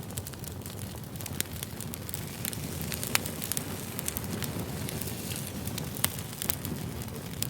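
Campfire burning, a steady low rush of flames with frequent sharp crackles and pops; the loudest pops come about three seconds in and again about six seconds in.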